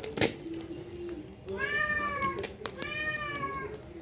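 A cat meowing twice, two drawn-out meows that rise and then fall, the first about halfway through and the second soon after. A sharp knock comes just after the start.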